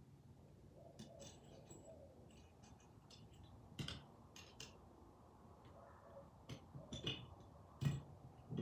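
Faint, scattered metal clicks and clinks of small bench-vise parts being handled and fitted together during reassembly, with a few sharper knocks near the end.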